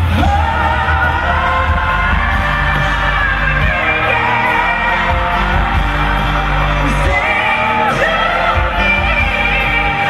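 A woman singing a pop ballad live into a microphone, holding long notes, with piano and band accompaniment, amplified over an arena sound system.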